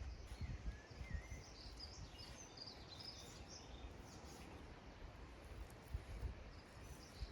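Quiet woodland ambience with a few faint songbird chirps in the first few seconds, and a couple of soft low bumps near the end.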